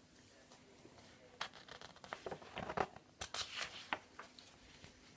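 Paper rustling and soft taps as the pages of a picture book are handled and turned: a cluster of short, quiet rustles from about one and a half to four seconds in.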